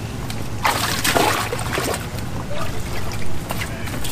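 Water splashing and trickling in a plastic tub of water as bass are handled in it, loudest for about a second and a half near the start.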